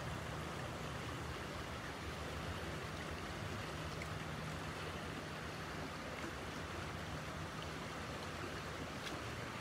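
Steady rush of a shallow river flowing over a riffle, with a faint, steady low hum underneath.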